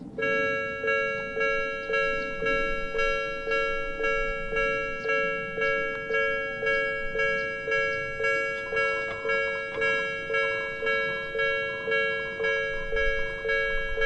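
Japanese level-crossing warning bell sounding: a two-tone electronic 'kan-kan' that starts suddenly and repeats about twice a second, each stroke ringing and fading. A low rumble rises under it near the end, as of a train drawing near.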